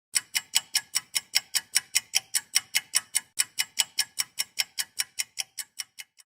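Rapid, regular ticking, about five ticks a second, each tick with a brief ringing tone. The ticks fade away near the end and then stop.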